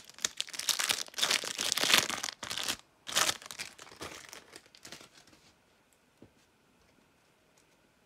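Trading card booster pack wrapper being torn open and crinkled, in bursts of crackling that die away about five seconds in.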